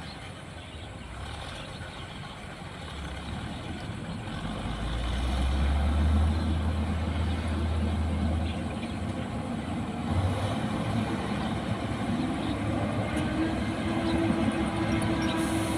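Rice combine harvester's engine running, growing louder about five seconds in; a steady whine joins near the end.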